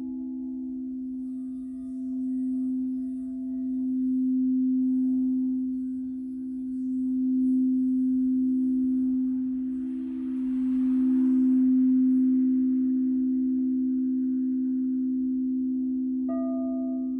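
Crystal singing bowls sounding two low sustained tones together, swelling and fading in slow waves. Faint higher chime tones ring above them, and a new high chime note is struck about a second before the end.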